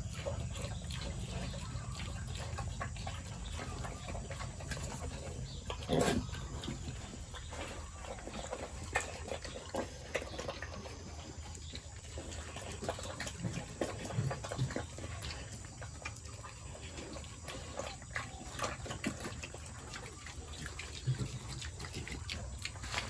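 Pigs in a pen with water running and splashing, over a steady low hum and scattered clicks and knocks; one louder, sharp noise comes about six seconds in.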